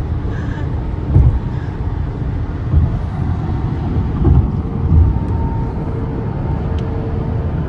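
Steady road and tyre noise inside a car cabin at highway speed, with a few low thumps and a faint steady hum coming in about halfway through.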